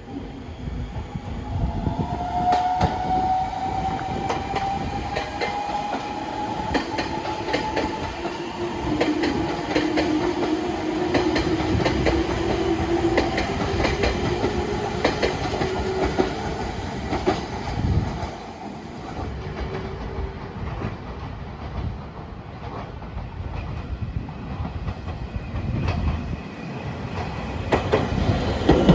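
Electric passenger train passing on the rails, its wheels clicking over and over across rail joints. A tone drifts slowly in pitch through the first two-thirds of the pass.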